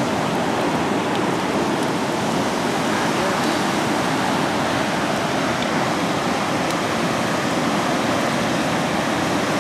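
Steady rush of water pouring through the dam, an even noise that does not change.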